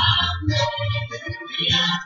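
Music: a song with voices singing over a steady beat.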